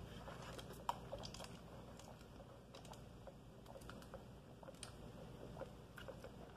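Faint, scattered small clicks and mouth sounds of a person sipping soda through a thin coffee straw.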